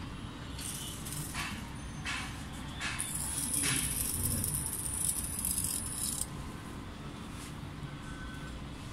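Tiny motor of a miniature solar toy car whining high while the car is held up in the sunlight, cutting off suddenly about six seconds in. Before it come light clicks and rattles of the small plastic car being handled.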